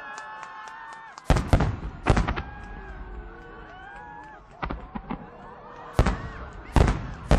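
Aerial firework shells at a large display: several whistling tones as shells climb, then a string of about seven loud bursts, with the heaviest near the start and a cluster near the end.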